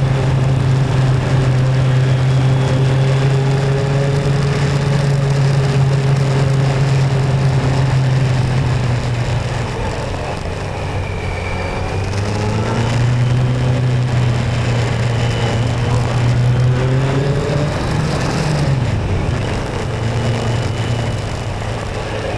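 Motorcycle engine running under way with wind and road noise: a steady engine note that drops about ten seconds in as the rider eases off, picks up again a couple of seconds later, and falls away again near the end.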